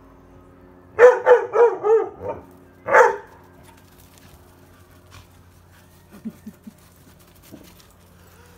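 Dog barking in play: a quick run of five high barks about a second in, one louder bark about three seconds in, then three faint short yips a little after six seconds.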